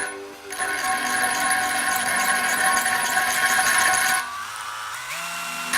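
Battery-powered drill spinning a wet 3/4 inch diamond hole saw against a porcelain toilet wall, a steady whine with grinding that eases off about four seconds in.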